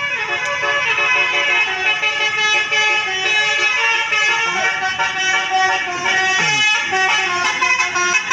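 A 12-note Basuri 'telolet' bus horn playing a melody. Its reedy tones step quickly from one note to the next without a break.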